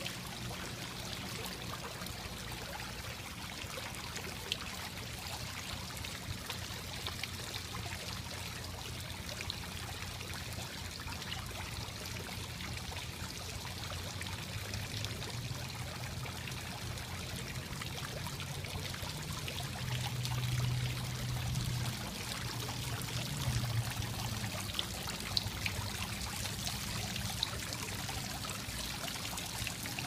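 Tiered courtyard fountain with water spilling from its bowls and splashing and trickling into the basin, a steady sound throughout. A low steady hum runs underneath and swells a little past the middle.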